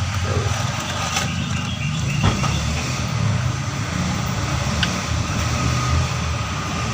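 A car engine idling steadily, with a couple of sharp clicks or knocks, one about a second in and another just after two seconds.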